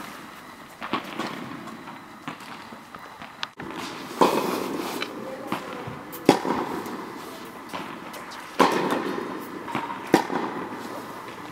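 Tennis balls being hit in a rally: sharp pops of the racket striking the ball, the loudest four coming about two seconds apart, each trailing off in a short echo, with smaller knocks of bounces and steps between them.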